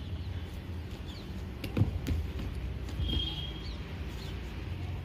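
Taekwondo sparring: a sharp smack of a kick or foot strike a little under two seconds in, and a softer thud about a second later, over a steady low rumble. Faint bird chirps in the background.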